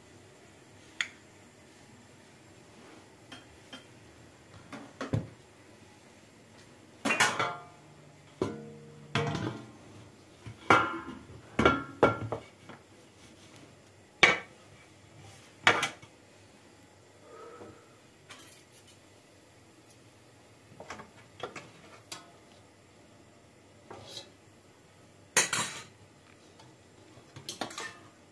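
Round metal baking pan and serving tray knocking and clattering as a baked bread kadayıf is turned out of the pan onto the tray: a string of irregular knocks and scrapes, busiest in the first half, with brief metallic ringing.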